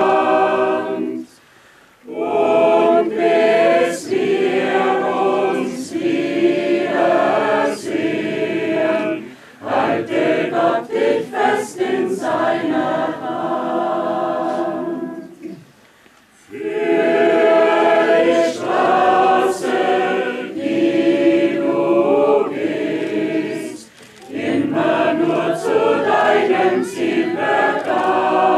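Mixed choir of men's and women's voices singing a song unaccompanied, in long phrases with short breaths between them.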